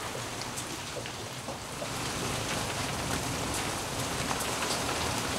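Rain falling on a sailing catamaran, with scattered drop ticks, growing louder about two seconds in.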